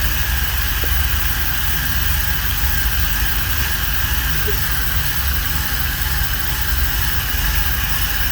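Small DC electric motor of a toy car running steadily, a constant whine over a low rumble.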